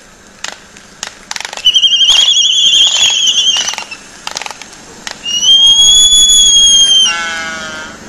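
Laysan albatross courtship display: a run of sharp bill clacks, then high whistling calls, the first wavering, the second held steady for about two seconds before breaking into a lower, falling moan near the end.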